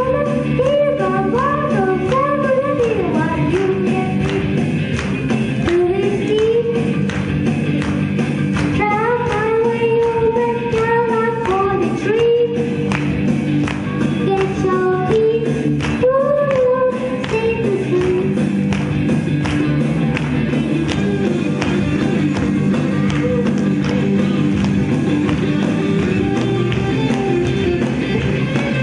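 A boy singing a song into a microphone over amplified musical accompaniment with a steady beat. The singing stops a little past halfway, and the instrumental carries on alone.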